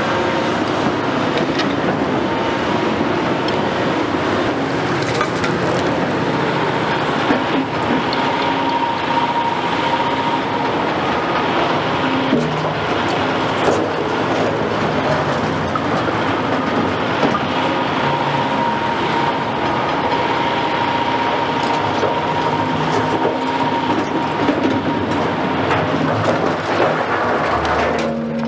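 Cat 352F XE hydraulic excavator's 12.5-litre Cat C13 ACERT diesel running under load as it digs with its bucket in demolition rubble, with a steady high whine and a few sharp knocks of stone and steel.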